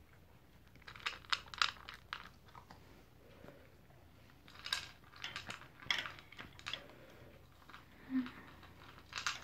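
Toy poodle eating from a plastic bowl: crisp crunching and clicking as it chews its food. The crunching comes in bursts of a second or two, with quieter gaps between.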